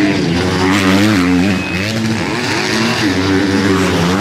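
Motocross motorcycle engines revving hard, their pitch rising and falling again and again with the throttle as the bikes race over the jumps.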